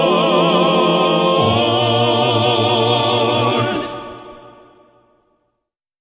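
Gospel quartet singing a cappella, holding the final chord on the word "Lord" with vibrato. The bass note changes about a second and a half in, and the chord fades away about four seconds in.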